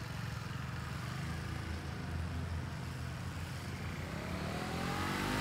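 Motorcycle engine running at low revs with a steady low rumble while the bike turns at low speed, then climbing in revs and getting louder near the end as it accelerates.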